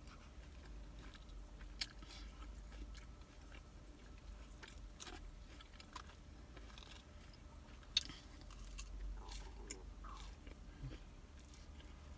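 A person chewing and biting food close to the microphone, with small wet clicks and light crunches throughout and two sharper clicks, about two seconds in and about eight seconds in. A steady low rumble sits underneath.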